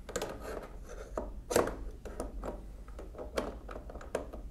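Adjustable wrench on a small nut on a mechanical calculator's metal frame: an irregular run of metal clicks and scrapes as the jaws are fitted and turned, the loudest knock about a second and a half in.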